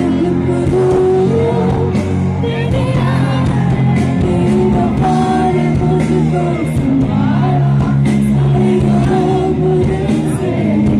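Live band performance with a woman singing lead into a microphone over drums, electric guitar and keyboards, loud and steady throughout, heard from among the audience.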